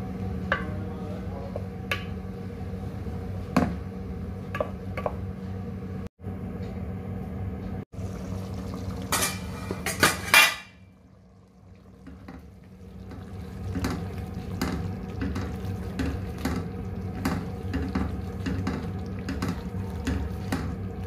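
Cookware sounds: a metal utensil clinking and scraping in a pan, over a steady low hum. About nine seconds in there is a brief louder rush of noise, then a quieter stretch, before the clinking starts up again, faster.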